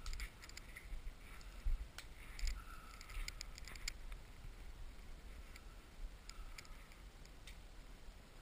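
Scattered light clicks and knocks as a Remington 870 pump-action shotgun is handled, over a low rumble on the microphone.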